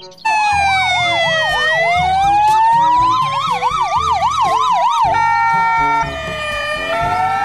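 Ambulance siren. A slow wail and a fast yelp of about four cycles a second sound together; about five seconds in the siren changes to steady held tones under a slow falling and rising wail.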